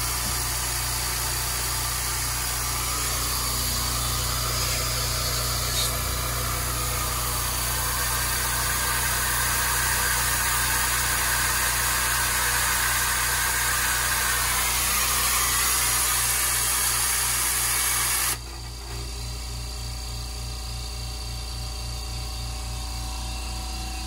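California Air Tools oil-free twin-cylinder air compressor running on its first start, a steady motor-and-pump drone that is pretty quiet for a compressor. About 18 seconds in, the sound drops suddenly to a lower level and carries on steadily.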